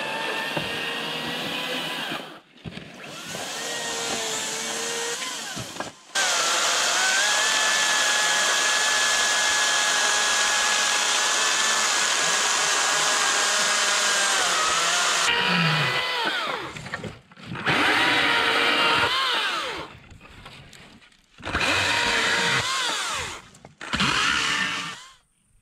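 Battery-powered chainsaw cutting through a log, its electric motor whining. A few short runs, then one long steady cut of about nine seconds, then several short bursts near the end whose pitch rises and falls.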